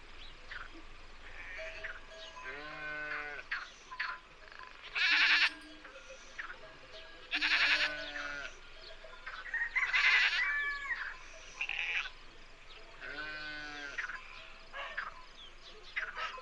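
Livestock bleating: about five calls, the three loudest in the middle quavering, over short faint chirps in the background.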